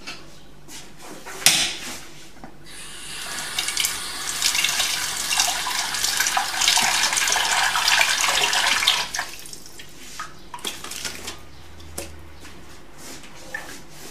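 A kitchen tap running into a sink for about six seconds, then turned off, with a sharp knock shortly before it starts and a few light clicks afterwards.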